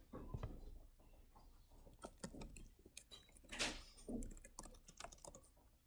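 Computer keyboard keys tapped in faint, irregular clicks, with a louder flurry about three and a half seconds in.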